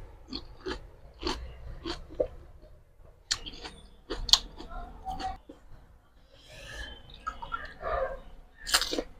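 Close-miked chewing and crunching of panipuri, the crisp fried puri shells breaking in short, irregular crunches.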